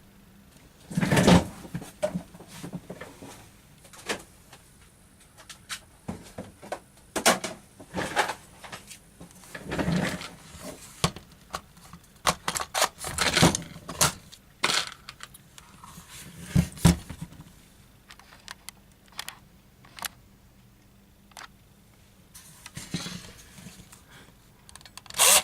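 Scattered clicks, knocks and rattles of hard plastic and metal objects being handled, with quiet gaps between.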